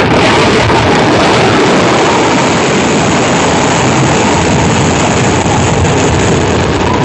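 Kerala temple-festival fireworks (vedikettu) barrage going off at close range: countless bursts running together into one continuous, loud roar.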